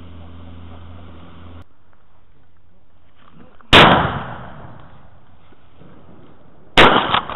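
Outboard motor on a small boat running steadily, cut off abruptly about a second and a half in. Then two loud shotgun shots about three seconds apart, each with a fading echo over the water.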